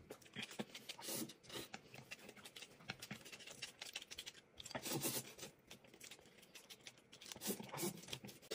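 Faint eating sounds of noodles being slurped and chewed: many small wet clicks and smacks, with louder slurps about five seconds in and again near the end.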